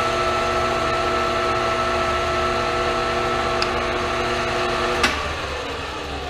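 Hardinge HLV-H toolroom lathe running under power, a steady whine of several tones from its drive and gearing. About five seconds in there is a sharp click, and the whine drops out and falls in pitch as the machine winds down.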